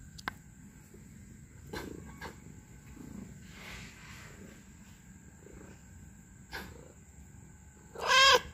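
A cat meows once near the end, a short, loud call. Before that there are only faint rustles and a few soft taps.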